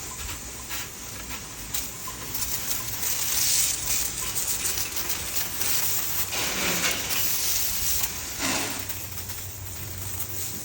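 Hose spraying water onto a kennel floor, the hiss swelling and fading as the spray moves.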